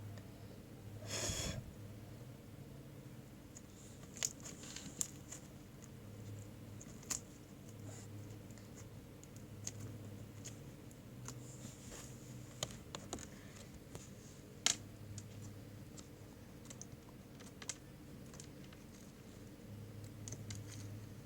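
Slime being squeezed and poked by hand, giving irregular small clicks and pops. A louder short squeak comes about a second in.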